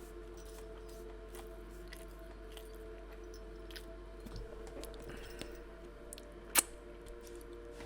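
A person chewing food close to the microphone, with small wet clicks and crunches of the mouth over a faint steady drone. One sharp click about six and a half seconds in.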